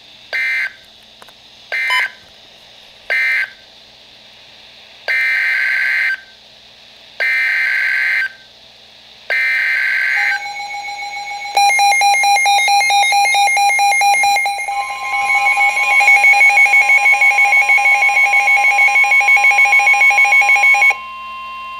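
Emergency Alert System data tones: three short warbling bursts ending the first warning, then three longer bursts of the next alert's header. These are followed by a loud, steady EAS attention tone with a pulsing overlay that runs about ten seconds and cuts off near the end.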